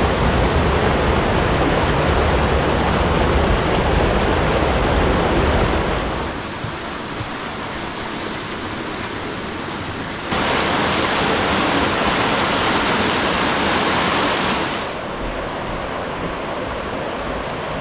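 Mountain stream rushing over rocks, a steady loud water noise that drops abruptly about six seconds in, returns louder about ten seconds in, and drops again near fifteen seconds.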